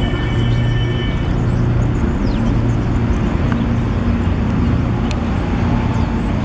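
Steady city street traffic: a continuous low engine rumble from cars and buses. A brief high whine sounds in the first second, and there is a sharp click about five seconds in.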